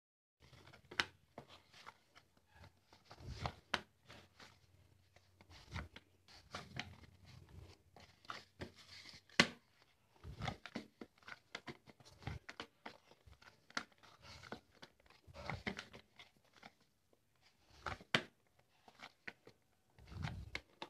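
Hands kneading soft whole-wheat dough in a metal bowl: faint, irregular squishing and pressing sounds with sharp clicks and knocks now and then as hand and dough hit the bowl.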